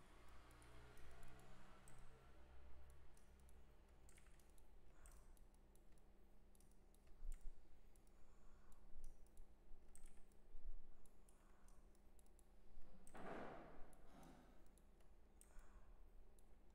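Faint, scattered clicks of a computer mouse and keyboard over a low steady electrical hum, with one brief louder rush of noise about three-quarters of the way through.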